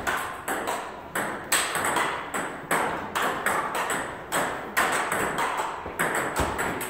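Table tennis balls clicking off paddles and table tops in fast rallies, about three hits a second, each click with a short room echo.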